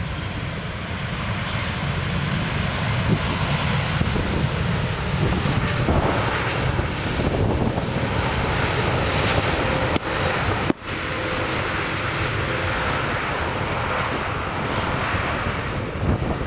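Jet engine noise from an arriving Boeing 787 airliner with GEnx turbofans: a steady, broad rumble that swells over the first couple of seconds, then holds. It cuts out briefly about two-thirds of the way through.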